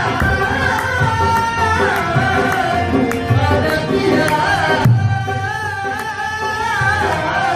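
Qawwali: a voice singing a Sufi kalaam with tabla, the melody gliding and ornamented over the drum strokes.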